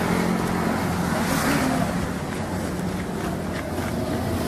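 Road traffic: a steady engine hum from vehicles on the road.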